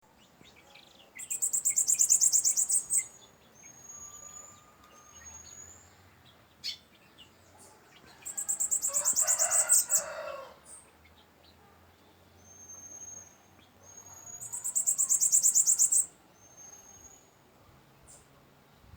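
A bananaquit (sibite) singing: three loud, very high, fast buzzy trills of about two seconds each, with short thin whistled notes between them. A rooster crows under the second trill.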